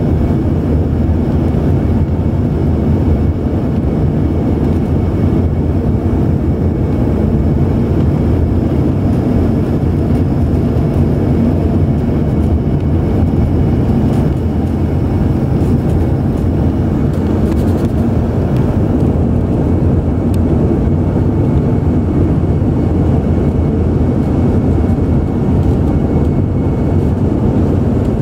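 Steady roar of engine and airflow noise inside an airliner's passenger cabin, deep and even, with a faint steady high whine above it.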